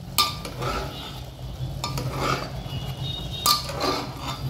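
A metal spoon stirs mutton and onions in a pressure cooker, scraping and knocking against the pot's metal side. There is a sharp stroke just after the start and a cluster of strokes about three and a half seconds in.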